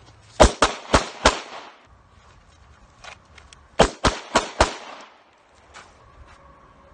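Semi-automatic pistol fired in two quick strings of four shots, a fraction of a second apart, with about two and a half seconds between the strings. Each string is followed by a short echo.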